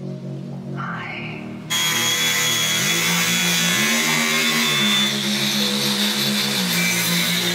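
Background music with a steady bass line that steps between held notes; it turns louder and fuller about two seconds in.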